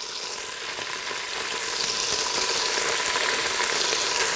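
Beef cubes sizzling in hot olive oil in an electric pressure cooker's inner pot on the sauté setting, as pieces of meat are dropped in to brown. A steady frying sizzle that grows a little louder over the first couple of seconds.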